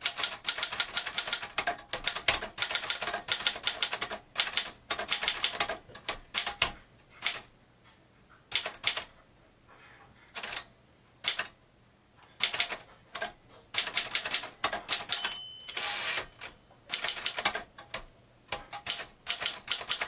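Typing on a 1949 Moskva Model 2 manual portable typewriter: fast runs of sharp key and typebar clacks broken by short pauses. About three-quarters of the way through, a brief bell ring is followed by the clatter of the carriage being returned for a new line.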